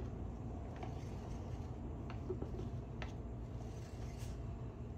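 Steady low room hum with a few faint, scattered clicks and rustles from gloved hands handling a crumpled plastic cup and paper towel.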